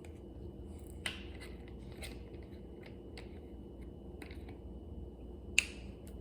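A few light clicks and crinkles from handling salad packaging, spaced about a second apart, with one sharp click near the end.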